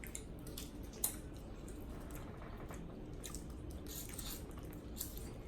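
Mouth and hand sounds of eating a shrimp boil in sauce: soft wet squishing and chewing with scattered small clicks, one sharper click about a second in.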